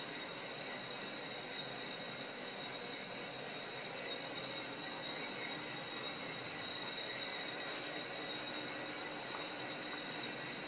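Fuji Royal Discovery drum coffee roaster running steadily with a batch of green beans just charged: a steady hiss from its drum, exhaust fan and gas burner, with faint steady tones.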